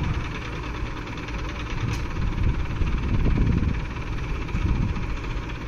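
Diesel engine of a Hydra 12-ton pick-and-carry crane running steadily while it holds a heavy steel frame on its hook, with the low rumble swelling briefly a couple of times in the middle.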